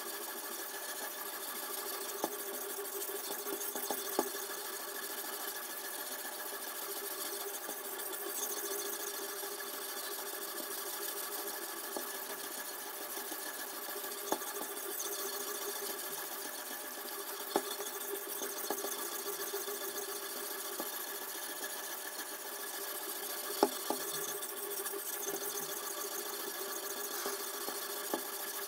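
Abrasive stone on the guide rod of a toohr #2 knife sharpening system stroked back and forth along a clamped chef's knife edge: a steady, scratchy rasp of stone on steel, with a few sharp clicks scattered through.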